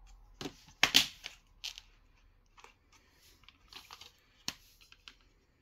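Plastic DVD case being handled and opened, its hinged inner disc tray swung over: a string of sharp plastic clicks and snaps, loudest about a second in.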